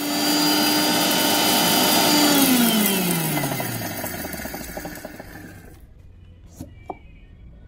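Electric mixer grinder with a steel jar running at full speed, grinding dry-fried chillies and spices, for about two seconds, then switched off and spinning down with a falling whine that fades over the next few seconds. A few light knocks near the end as the jar is handled.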